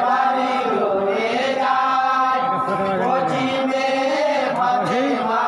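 Men's voices chanting a Bengali jari gaan, the Muharram lament song, with long held notes that slide up and down.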